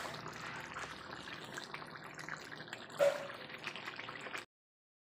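Chicken curry gravy bubbling in a pan at the boil, with a short clink about three seconds in; the sound cuts off suddenly near the end.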